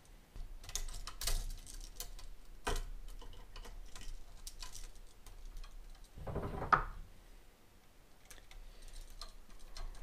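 Scattered small clicks and taps from handling a duplex electrical outlet and fitting hooked copper wire ends onto its brass terminal screws. A brief, louder sound comes about six and a half seconds in.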